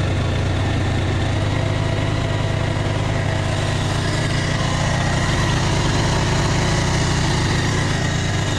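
Bajaj Pulsar 220's single-cylinder engine idling steadily just after a cold electric start, with the choke on.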